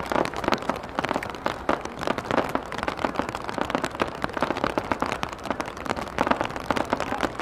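Low-level fireworks going off in rapid succession: a dense, continuous crackle of many small overlapping pops and bangs, with no pause.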